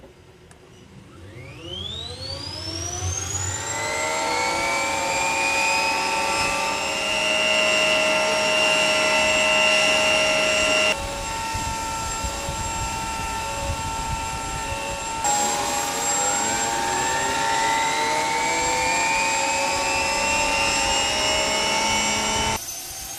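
Helicopter's auxiliary power unit (APU) starting: a turbine whine rises in pitch over about three seconds and settles into a steady high whine. After an abrupt cut, a second rising spool-up begins about 15 seconds in and levels off to the same steady whine.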